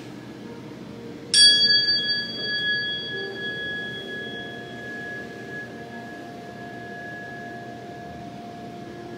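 A metal tuning fork is struck once about a second in. It rings a clear, high steady tone with a few higher overtones that die away within a few seconds, while the main tone fades slowly. A fainter, lower steady tone sounds beneath it in the second half.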